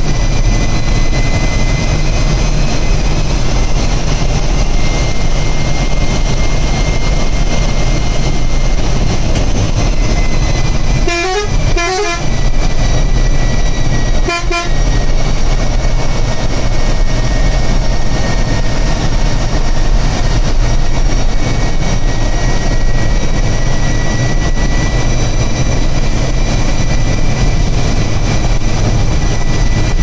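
Ashok Leyland Viking bus's diesel engine running steadily at cruising speed, heard from inside the cabin, with a steady high whistle over the low drone. Two brief horn toots come near the middle, about three seconds apart.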